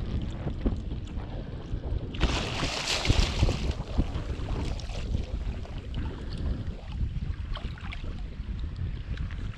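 Hooked sevengill shark thrashing at the surface beside a kayak, splashing water; the biggest splash comes about two seconds in and lasts over a second, with smaller splashes after. Steady wind rumble on the microphone underneath.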